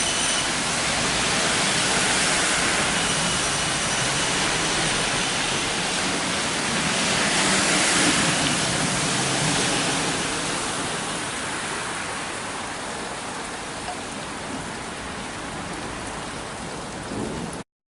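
Heavy rain falling in a steady hiss, easing off a little in the second half and cutting off abruptly near the end.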